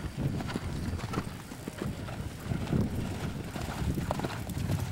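Hoofbeats of horses moving close by on a dirt arena: a continual run of dull thuds.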